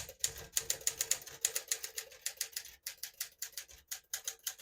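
1961 Smith-Corona Sterling manual portable typewriter being typed on at a steady pace. Its keys and typebars strike the platen with sharp clacks, about five a second.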